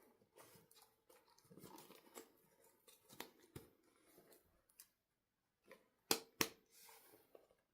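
Handling noises from small objects: scattered light rustling and clicks, with two sharp clicks close together about six seconds in.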